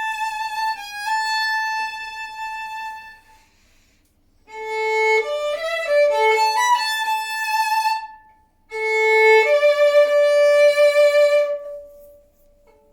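Solo violin played with the bow, in three short phrases with brief pauses between them. The first phrase ends on a long held note, and the last settles onto a held lower note that dies away near the end.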